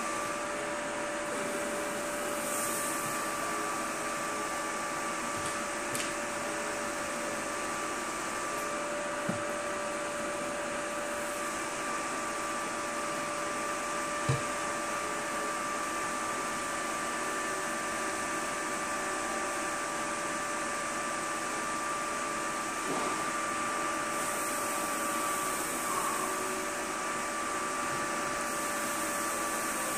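Steady whirring hiss with a constant thin whine, from an open bench-top PC rig's cooling fans and liquid nitrogen boiling off in the pot on its graphics card while it runs a benchmark under load. A few light knocks, the sharpest about halfway through.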